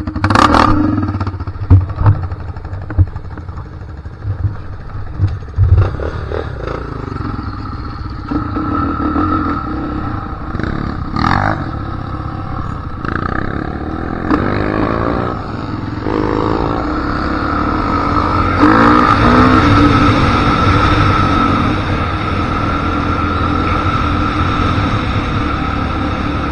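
ATV engine riding off-road then along a paved road: a few clunks and clatter in the first few seconds, the revs rising and falling a couple of times mid-way, then running steadily at road speed.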